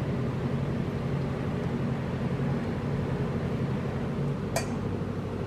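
Steady low room hum, with a single light clink of a serving spoon against a plate about four and a half seconds in as salad is spooned out.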